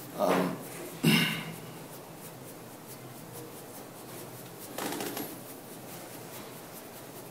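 Room tone in a quiet room during a pause, broken by two short sounds near the start and a fainter one about five seconds in.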